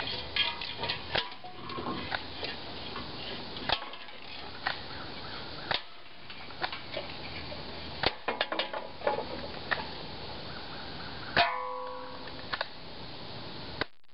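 A series of sharp, irregular clicks and knocks of a spring airsoft sniper rifle being handled and worked, with one louder sharp hit about eleven seconds in that rings briefly like struck metal.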